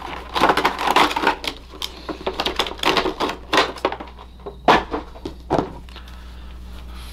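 Stiff plastic toy packaging being handled and crumpled: a dense run of crackles and clicks, with a couple of louder snaps about five seconds in, then it stops, leaving only a low steady hum.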